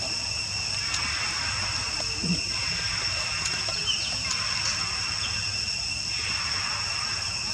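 Steady, high-pitched insect chorus droning without a break, with a few faint short chirps over it.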